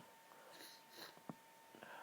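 Near silence with a person's faint breaths, two soft puffs about half a second and a second in, as she recovers from a stifled sneeze. A faint click and a faint steady high tone are also present.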